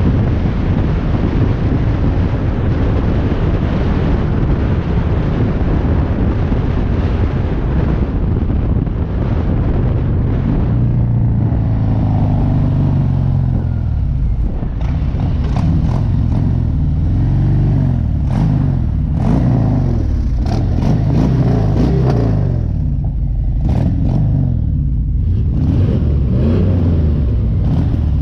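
Harley-Davidson motorcycle's V-twin engine running on the road, with wind rushing over the microphone. About ten seconds in the wind rush eases and the engine note rises and falls through gear and throttle changes.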